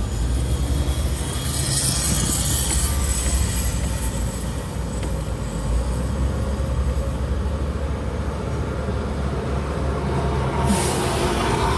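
Low, steady rumble of traffic on a bridge, with a rushing hiss about two seconds in and a sudden louder rushing sound near the end.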